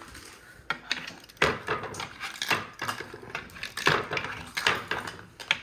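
Connect Four discs clacking as they are dropped into the game's grid and handled, a quick irregular series of hard plastic clicks and knocks.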